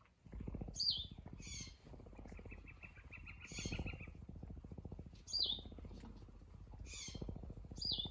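Mountain lion purring, a rapid low pulsing that comes in long stretches with short breaks. Small birds chirp and trill high above it six or seven times.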